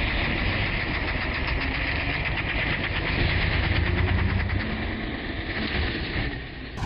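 Engine of an Uragan Taiga 2000 motorized snow tow running steadily with a fast firing rhythm, easing off somewhat near the end.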